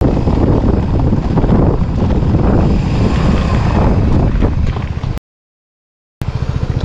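Wind rushing and buffeting over the microphone of a moving motorcycle, a loud low rumble that drowns out any engine note. It cuts out completely for about a second just past the middle, then comes back.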